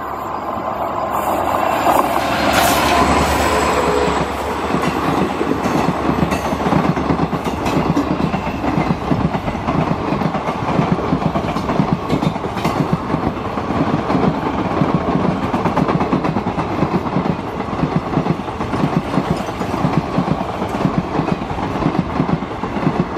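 WDP4D diesel locomotive running past close by, loudest a couple of seconds in. It is followed by a rake of LHB passenger coaches rolling past with a steady, rapid clatter of wheels on the rails.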